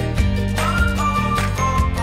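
Upbeat instrumental background music with a bass line, a steady beat and a bright, chiming melody.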